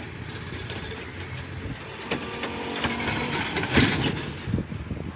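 Dump truck's diesel engine running, with scattered knocks and clatter, loudest about four seconds in.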